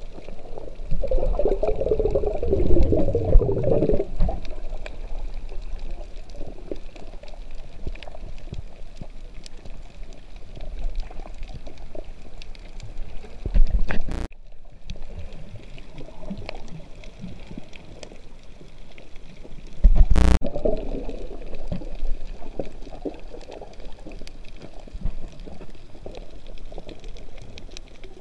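Underwater sound picked up by a camera in its housing while swimming over a reef: muffled water rush with faint scattered clicks, and louder bubbling, gurgling bursts about a second in and again about twenty seconds in. The sound breaks off abruptly about fourteen seconds in.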